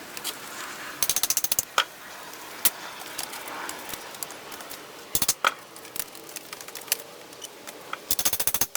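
A hand tool working the bent nails of a wooden panel: three quick runs of metallic clicking and rattling, about a second in, just past five seconds and near the end, with single sharp knocks between them.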